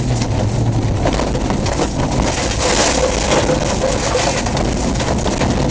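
Off-road rally car driven hard over a rough dirt track, heard from inside the cabin: engine running under load, mixed with the dense rattling and jolting of the body and tyres over the bumpy ground.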